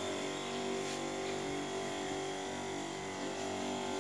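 Battery-powered knapsack sprayer's electric pump running with a steady hum while the lance sprays.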